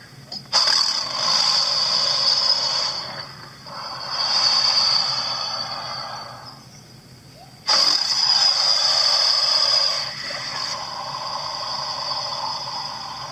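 Recorded alligator calls played back: three long, harsh calls with no clear pitch, the first two about three seconds each and the last about five, thin with no low end.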